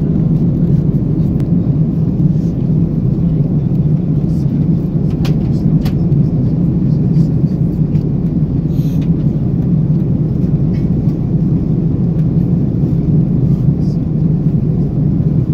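Steady low rumble inside the cabin of an Airbus A330-300 in flight: engine and airflow noise heard from a window seat, with a few faint ticks near the middle.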